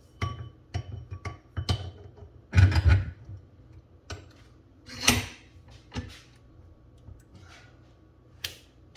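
Steel pipe being handled and clamped in a bench vise: a series of sharp metallic knocks and clicks with a faint ring, the loudest about two and a half and five seconds in.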